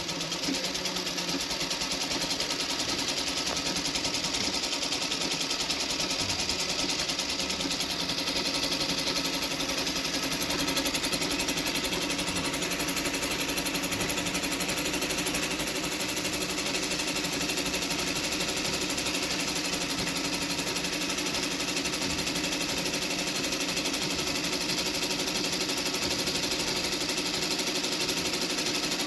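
JAXI JX-38 sewing machine running steadily at speed, a fast, even mechanical chatter that does not change.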